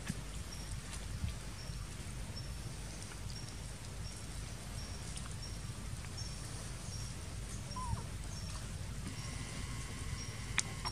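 Outdoor ambience: a short, high chirp repeating about twice a second over a low steady rumble, with a few soft clicks and one brief squeak near the end.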